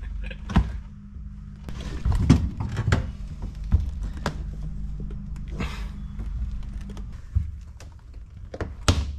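Scattered knocks, clicks and thunks of hands and tools working around the bare cab and empty windscreen frame of a Toyota 60 series Land Cruiser, over a steady low hum.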